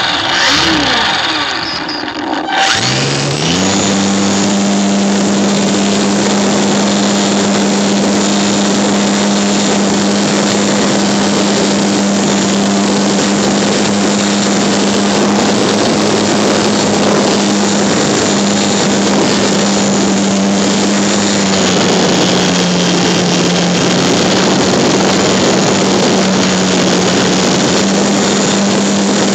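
Electric motor and propeller of a HobbyZone Super Cub model plane, heard from a phone riding on the plane: about three seconds in the motor spins up with a quick rising whine, then holds a steady hum under loud wind and propeller rush. About two-thirds of the way through the hum steps slightly lower in pitch, as the throttle eases back a little.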